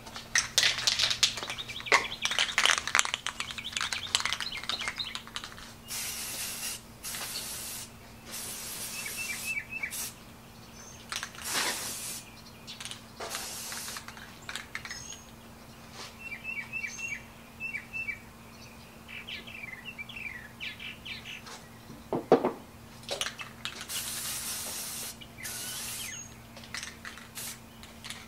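Aerosol spray-paint can being shaken, its mixing ball rattling, for the first few seconds, then sprayed in a series of short bursts of hiss, each about a second long, as parts are primed. Birds chirp in short runs in the background.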